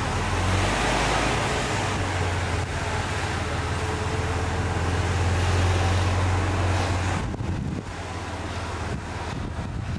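Golf cart driving along, a steady low hum from its drive under a rushing noise of wind on the microphone; the hum drops away about seven seconds in.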